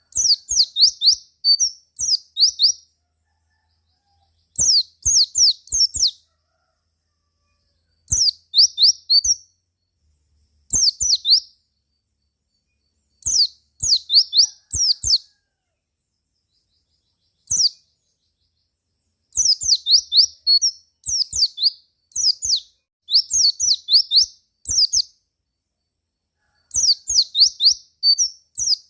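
White-eye (pleci) calling in short bursts of quick, high chirps, each note sliding downward. Each burst holds several notes, and the bursts repeat every one to three seconds with brief silences between them.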